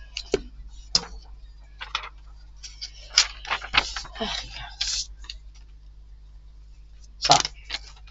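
Handling noises on a craft table: scattered light clicks, taps and scrapes as a gelli printing plate is moved and set down on a cutting mat, then a louder paper rustle near the end as a magazine page is picked up.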